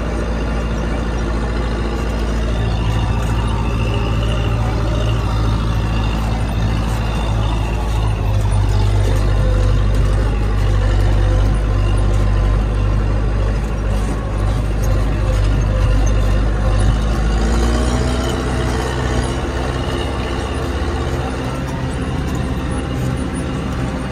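Massey Ferguson 3060 tractor's diesel engine running steadily under load, heard from inside the cab. The engine note rises slightly late on.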